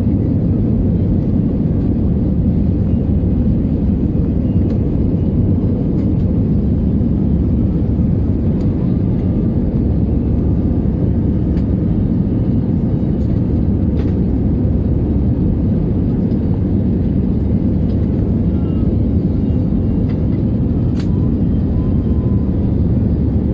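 Steady low rumble of an Airbus A320-family airliner's jet engines and airflow, heard from inside the passenger cabin, with a few faint clicks.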